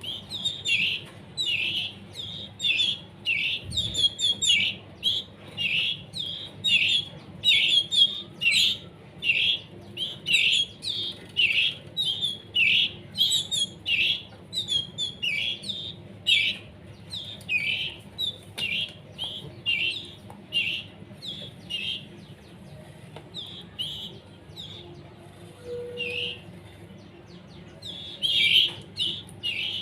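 Young canary chicks begging: short, high chirps repeated about twice a second, the food-begging calls of fledglings still being hand-fed while they learn to feed themselves. The calls thin out for a few seconds near the end, then pick up again.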